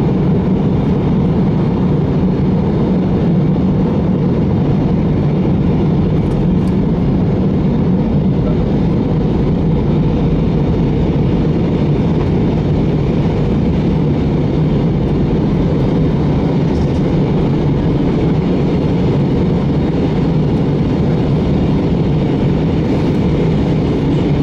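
Steady cabin noise of an Airbus A320 in descent, heard inside the cabin: an even, low rush of jet engines and airflow at a constant level.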